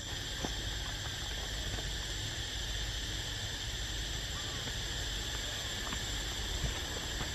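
Steady high-pitched drone of an insect chorus, over a low rumble, with a few faint light clicks.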